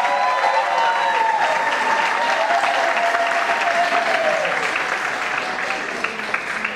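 Audience applauding, with a few voices calling out in the first few seconds; the clapping eases slightly near the end.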